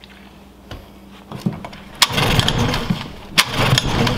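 Small outboard motor being pull-started after gas was poured by hand into its carburetor to prime it. Halfway through it sputters into rough running for about a second, then again after another sharp start about a second and a half later, without yet running on its own.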